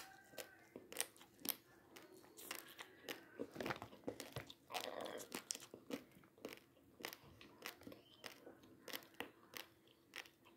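Dry, uncooked basmati rice grains crunched between the teeth while chewing: a run of sharp, irregular crunches at close range.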